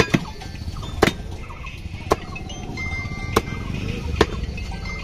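A butcher's cleaver chopping meat on a wooden log block: five sharp knocks, roughly one a second, over steady low market background noise.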